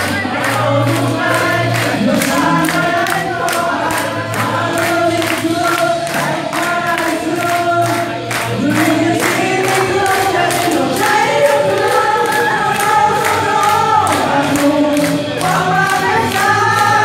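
A small mixed group of men and a woman singing together into microphones, with steady hand clapping in time, about two claps a second.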